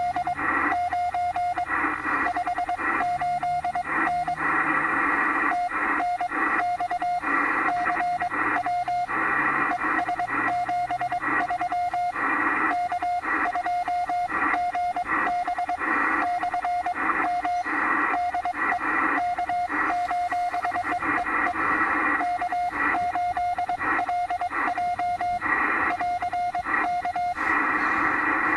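Ham radio transceiver's speaker receiving on 40 meters: a steady mid-pitched tone switching on and off in irregular short and long pulses, each pulse carrying a rush of static.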